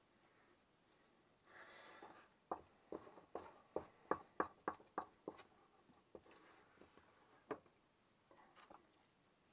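Wooden spoon working a thick beetroot paste in a pot. A short scrape comes first, then a quick run of about ten sharp knocks of the spoon against the pot, about three a second, and one more knock near the end.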